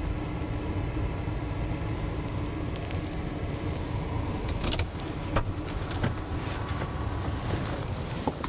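Ford pickup truck's engine running as the truck pulls up and stops. A few sharp clicks and knocks follow in the second half as the door is opened.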